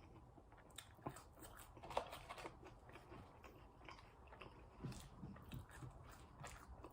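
Faint, close-up chewing of french fries, with scattered small crunchy clicks and soft mouth noises.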